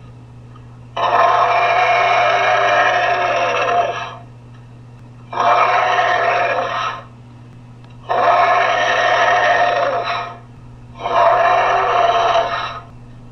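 Homemade dinosaur sound effect: four long, harsh vocal calls of two to three seconds each with short pauses between, over a steady low hum.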